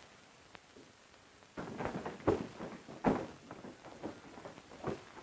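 A rapid run of sharp knocks and thuds begins about a second and a half in. The two loudest come close together, under a second apart, and weaker knocks carry on afterwards.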